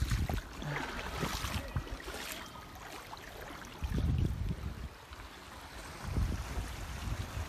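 Shallow creek running over a gravel bed, a steady rush of water, with low rumbles of wind on the microphone about four and six seconds in.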